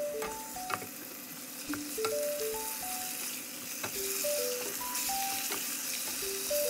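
Chicken thighs in red curry paste sizzling in hot oil in a stainless steel pot, stirred with a wooden spoon, with a few sharp clicks from the stirring. A simple melody of short notes plays over it.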